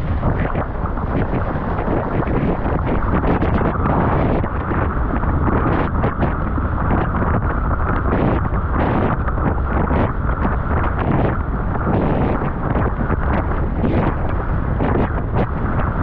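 Strong wind buffeting a GoPro's microphone while windsurfing at speed, with water rushing under the board and many quick slaps as it bounces across choppy water.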